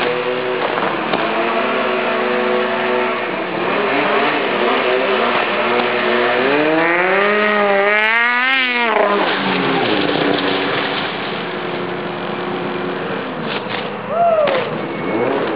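Snowmobile two-stroke engine with an aftermarket exhaust, idling and then revved. The note climbs for a couple of seconds, wavers quickly at the top and drops back to idle, with one more short blip near the end.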